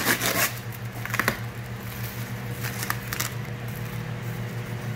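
Clear plastic packing tape being pulled off a shipping box lid and handled, with short bursts of crackling and rustling. A steady low hum runs underneath.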